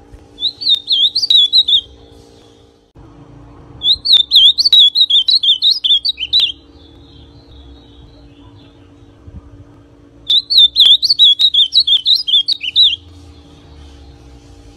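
Young male ultramarine grosbeak (azulão pardo) singing: three fast, warbling phrases of about one and a half to three seconds each, separated by pauses of a few seconds.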